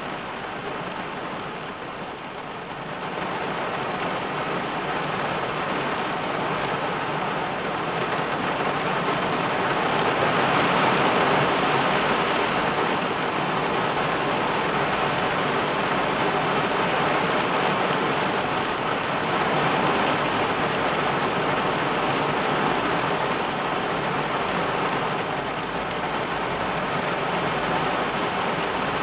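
Heavy rain falling on a car's roof and windshield, heard from inside the cabin: a dense, steady hiss that grows heavier about four seconds in and stays strong.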